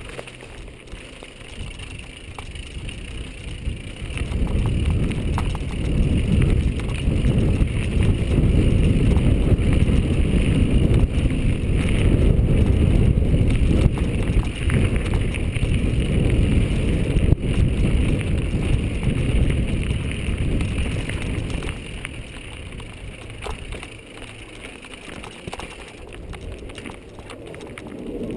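Mountain bike riding down a dirt singletrack: tyres rolling on dirt and the bike rattling, under a low rumble. The rumble grows louder about four seconds in and eases after about twenty-two seconds, as the riding speed changes.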